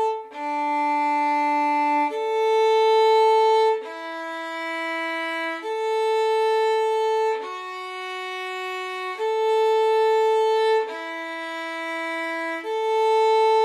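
Solo violin playing a slow détaché exercise on the D and A strings: eight long whole-bow notes of about two seconds each, D, A, E, A, F-sharp, A, E, A, with the first and second fingers on the D string alternating with the open A.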